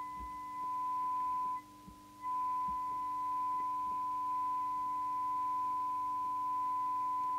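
Steady, pure test tone from the Midland 3001 CB radio's receiver, demodulating a modulated signal from a signal generator while the FM detector coil is peaked for maximum audio. A faint low hum runs beneath it. The tone drops out for about half a second near two seconds in, then returns.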